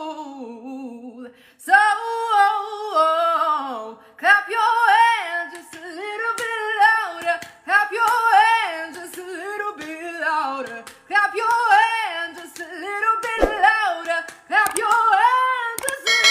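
A woman singing solo without accompaniment, in short phrases full of sliding, ornamented runs and held notes.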